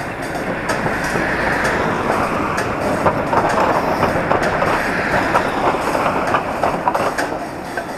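Passing city street traffic, swelling through the middle and easing near the end, with scattered clicks and rattles.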